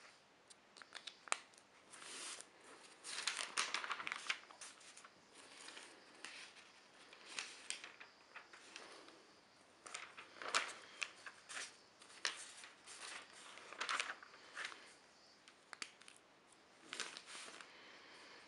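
Newspaper pages being turned and handled, the thin newsprint crinkling and rustling in several irregular bursts.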